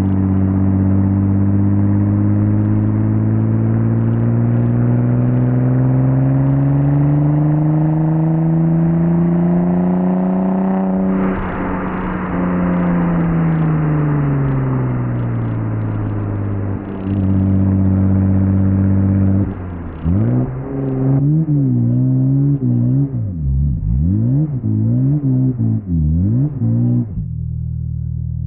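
The 2.7-litre twin-turbo V6 of a 1998 Audi S4 B5 pulls steadily up through the revs for about ten seconds, with a short hiss as the throttle closes. The revs then fall away, hold briefly, and the engine is blipped up and down several times in quick succession before settling to a low steady run near the end.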